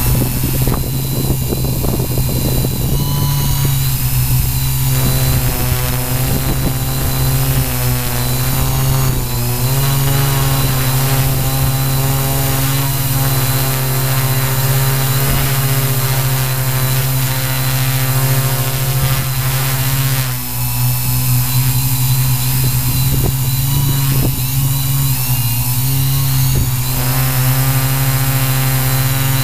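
Q800 drone's electric motors and propellers whining steadily, heard close up from the drone itself, the pitch drifting up and down as the motor speeds adjust to hold it in the air.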